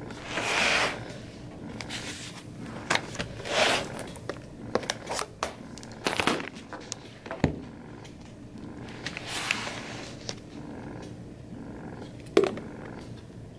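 Desk objects being handled: a few brief rustling swishes and several sharp knocks as a planner, pen and book are moved about and set down on a wooden desk, the loudest knock near the end.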